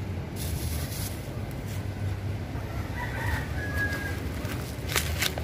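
A rooster crowing in the background about three seconds in, over a steady low rumble. Plastic sheeting rustles briefly near the end.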